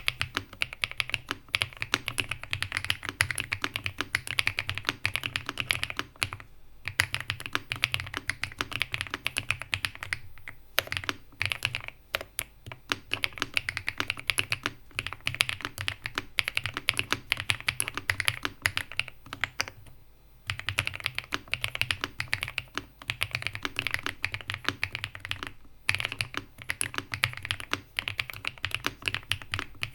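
Stock Mechlands Vibe99 mechanical keyboard with Cream Mint switches being typed on in fast, continuous runs of keystrokes, with brief pauses every few seconds.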